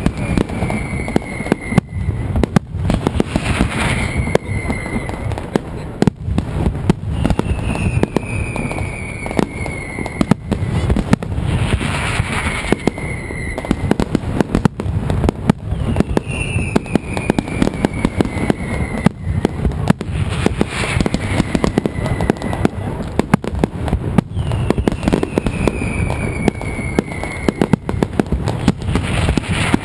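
Mascletà firecrackers going off in a dense, continuous rattle of rapid bangs, with a high falling whistle about every eight or nine seconds.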